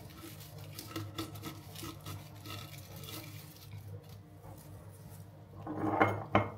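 Artificial berry and pine stems rustling as they are handled in a glass vase. Near the end come two sharp knocks as the stems strike the glass while the bunch is pulled out.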